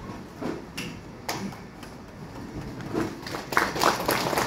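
Scattered taps and knocks in a hall, a couple early and then a busier run from about three seconds in.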